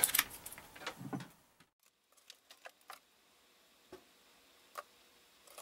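A few faint, scattered clicks and light taps from small hand tools and a resistor being handled.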